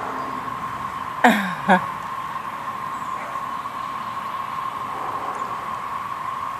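Chorus of periodical (17-year) cicadas: a steady, continuous drone held on one pitch. About a second in, two short sounds sweep sharply down in pitch over it.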